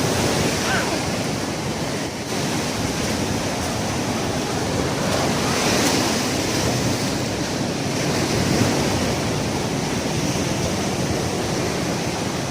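Ocean surf breaking and washing up a beach: a steady rush of noise that swells a little about six seconds in.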